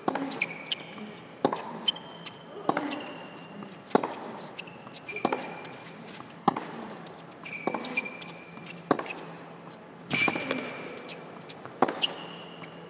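Tennis rally on an indoor hard court. Racket strikes on the ball come about every second and a half, with ball bounces and short high shoe squeaks between them.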